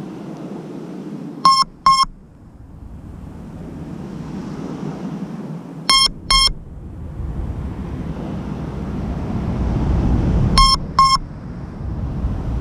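Short double beeps, repeated three times about four and a half seconds apart, over a low background rumble that swells and fades.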